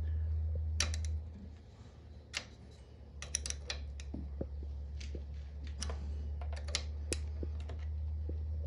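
Small metallic clicks and taps of hand tools working a GY6 engine's valve adjuster and rocker arm while the valve clearance is set. The clicks come irregularly over a steady low hum.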